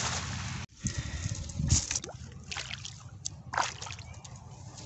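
A cast net slaps down onto shallow creek water with a spreading splash that cuts off sharply under a second in. Several separate sloshes and splashes of water follow, the loudest about two seconds in.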